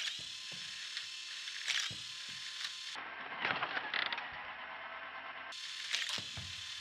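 Lego Technic launcher mechanism clicking and ratcheting as its plastic gears feed and fire Hot Wheels cars, with repeated sharp clicks, often two close together.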